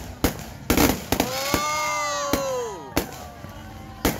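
Aerial fireworks going off overhead in a ragged series of sharp bangs, about seven in all. Through the middle a long whistle rises, holds and falls away over about a second and a half.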